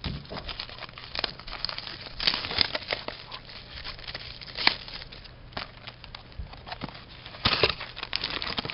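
Paper crinkling and rustling as a printed sheet and trading cards are handled, with irregular small clicks, one sharp tap about halfway through and a louder rustle near the end.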